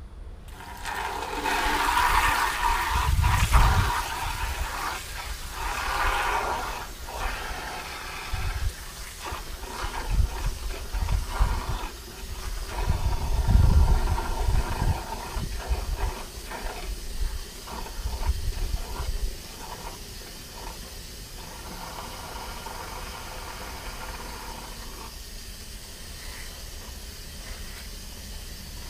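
Water spraying from a garden hose nozzle into a bucket of car wash soap, frothing it into suds. The hiss and splash are louder and uneven for the first twenty seconds or so, then settle into a steadier, quieter hiss.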